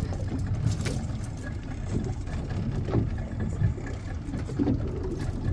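Outboard motor of a small open fishing boat running low and steady, with a few light knocks.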